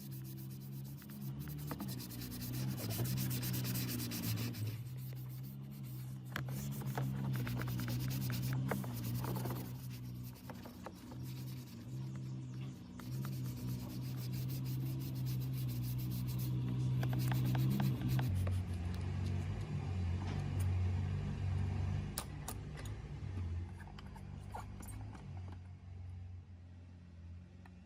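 Rubbing and scraping of hand work, with many short scratchy strokes that thin out in the second half, over background music with sustained bass notes.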